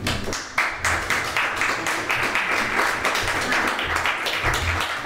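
Audience applauding, a dense patter of many hands clapping that starts about half a second in and keeps going.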